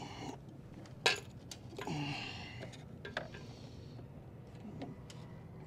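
A few sharp clicks from the switches and levers of a Ducati 959 being tried, the loudest about a second in, with light handling rustle. No starter motor cranks: the bike is dead.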